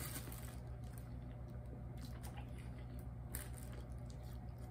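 Faint soft squishes and clicks of food being handled and eaten, over a steady low hum.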